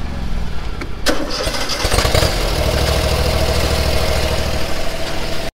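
Yakta mower running, with a sharp clunk about a second in, after which a steady whine and a heavier low rumble join the engine sound. The sound cuts off abruptly just before the end.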